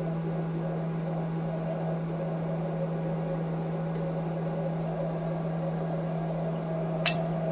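A steady machine hum with one low droning tone, and a single short sharp click near the end.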